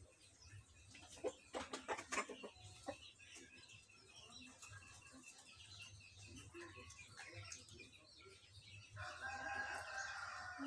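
Faint chickens clucking and a rooster crowing, the crow held for under two seconds near the end, with small birds chirping in the background.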